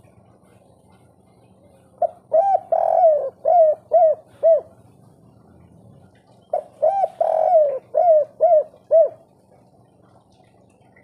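Spotted dove cooing: two phrases about two seconds apart. Each is a run of about six downward-bending coos, with the third note drawn out longest.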